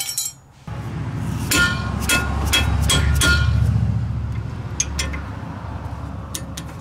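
Brake pad clips being pried out of the caliper bracket: a quick series of sharp metal clinks with a ringing note, over a low steady hum.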